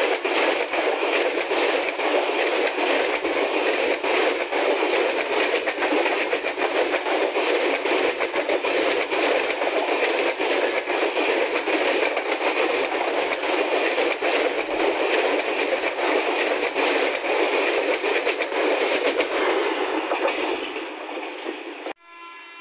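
LHB passenger coaches of an express train rolling past close by: a steady rushing rumble with wheels clattering over the track, fading and then cutting off near the end.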